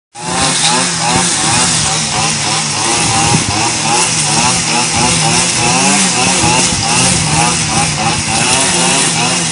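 Petrol brush cutter (motor scythe) running while cutting grass, its engine pitch wavering up and down continuously.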